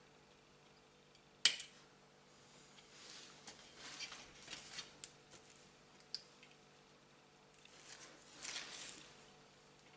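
Side cutters snipping small plastic parts off a model kit's sprue: one sharp snip about one and a half seconds in and a smaller click around six seconds, with soft rustling as the plastic sprue is handled in between.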